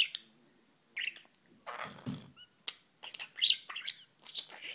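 Budgerigar chattering: quick, irregular chirps and squeaky warbles in short bursts, with a longer, rougher burst about two seconds in.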